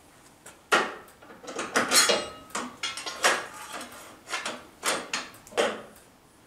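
Steel carriage and angle-iron brace of a home-built CNC router gantry being pushed and pulled by hand: a run of irregular metallic clunks and rattles, about a dozen knocks, as the carriage is tested for play.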